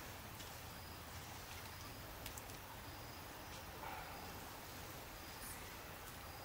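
Faint outdoor woodland ambience: a steady hiss with short high chirps every second or so and a few light clicks.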